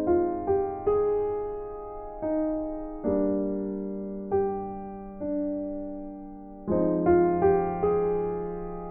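Slow piano music: notes and chords struck one after another, each ringing and fading before the next.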